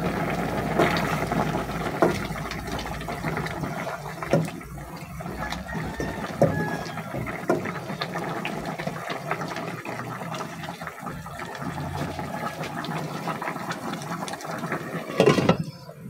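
Catfish adobo bubbling at a boil in an open pot while a spatula stirs it, with several sharp knocks of the utensil against the pot. Near the end the glass lid clatters back onto the pot and the bubbling turns muffled.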